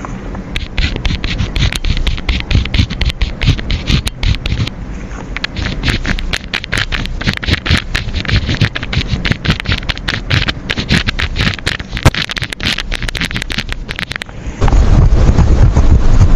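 Pen writing on paper: quick, irregular scratchy strokes, one after another. Near the end it cuts abruptly to a louder, steady low rushing noise.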